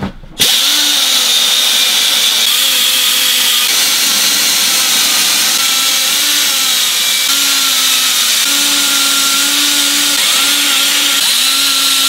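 Angled die grinder starting up about half a second in and running steadily at high speed, its whine wavering slightly in pitch as it is pressed onto dirty battery cable terminals to clean them.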